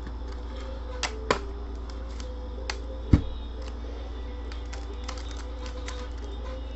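A few sharp clicks and taps of trading cards and their holders being handled and set down on a table, with one louder, duller knock about three seconds in, over a steady low hum.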